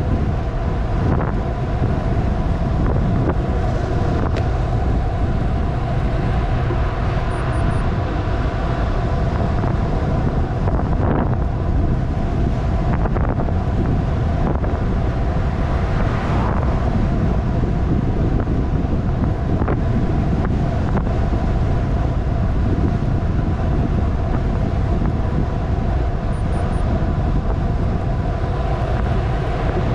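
Wind rushing over the microphone of a camera on a bicycle during a fast downhill descent, loud and steady, with a faint steady hum underneath.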